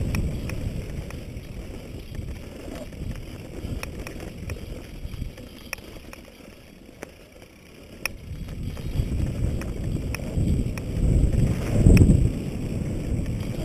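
Wind buffeting a helmet-mounted camera's microphone, with the rumble of mountain bike tyres rolling fast over a dry, rocky dirt trail and scattered sharp clicks and rattles from the bike and loose stones. It eases off for a couple of seconds midway and swells again near the end.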